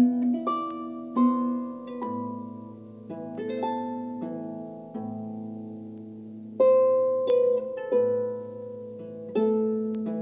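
Solo pedal harp playing a slow habanera: plucked notes and chords ringing and fading over low bass notes, with strong chords at the start, about six and a half seconds in and again about nine and a half seconds in.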